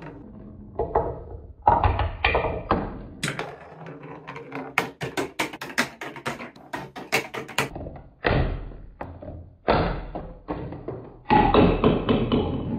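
Marbles rolling along a TrixTrack marble run of wooden and plastic track, in stretches of rolling noise broken by quick clattering clicks. The clicking is densest in the middle, and a longer rolling run comes near the end.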